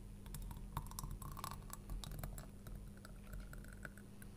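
Thick, hot fruit jam being poured from a plastic jug into a glass jar: a faint scatter of small wet clicks and splats, busiest in the first couple of seconds.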